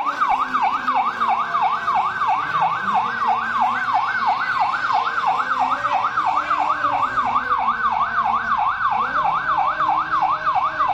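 Police vehicle's electronic siren on a fast yelp, its pitch sweeping up and down about three or four times a second without a break, with car engines running beneath it.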